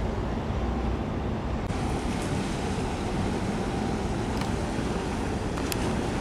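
Steady wind rumbling on the microphone over the wash of open harbour water. The hiss turns brighter a little under two seconds in.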